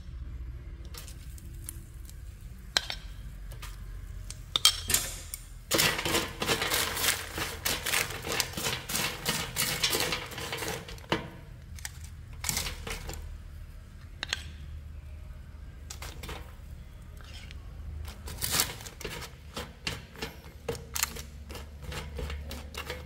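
Roasted peanuts stirred with wooden chopsticks in a parchment-lined air fryer basket: the peanuts clatter and click. There is a dense run of stirring from about six to eleven seconds in, and quicker clicks near the end.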